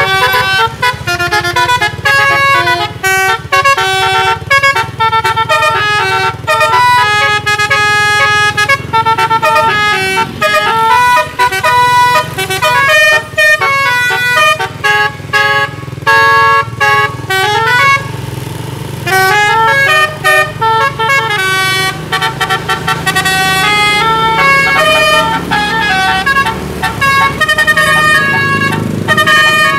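A bus's 'telolet' musical air horn, a DAV horn module, playing long runs of quick, stepped melody notes, with a short break about eighteen seconds in. A steady low hum runs underneath.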